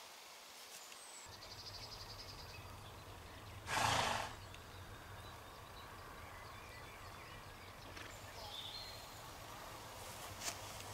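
A horse snorts once, a short noisy burst of about half a second, over steady pasture ambience with a low hum.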